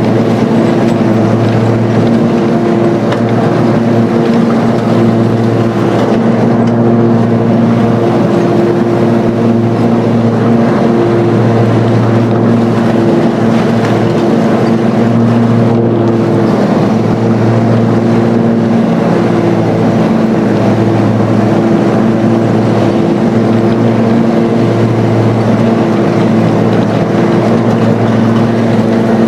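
Riding lawn mower's engine running steadily while mowing, a loud low hum with a slight waver.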